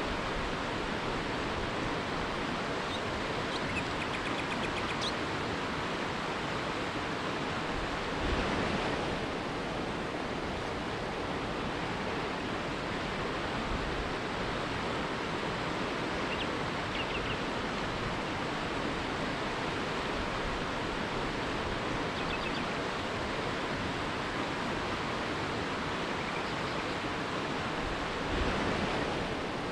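River rapids rushing steadily, a dense even roar of water that swells briefly twice. Faint bird chirps come through now and then.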